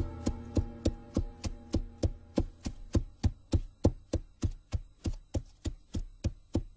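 Steady clip-clop of a horse's hooves at a walk, about three beats a second. A held music chord fades out in the first second or so.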